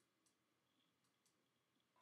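Near silence with a few faint computer mouse clicks, coming in pairs.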